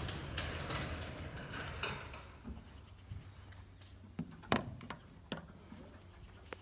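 An overhead garage door being pushed up by hand, rattling and rumbling, fading out about two seconds in. Then a few scattered sharp knocks.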